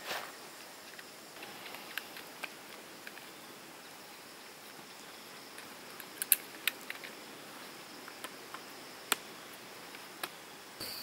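Wood fire in a small folding fire stand crackling, with occasional sharp pops, over a faint steady high insect trill.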